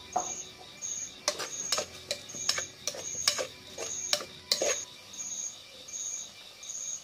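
A wooden utensil knocking and scraping against a metal pot as shallots are stirred, with sharp clinks through the first five seconds. Behind it an insect chirps steadily, about three high-pitched pulses every two seconds.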